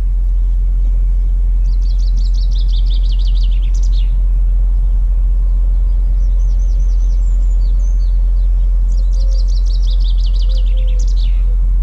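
A songbird singing the same phrase twice, a rapid descending trill ending in a short flourish, with shorter chirps between. Underneath is a steady low rumble, which is the loudest sound.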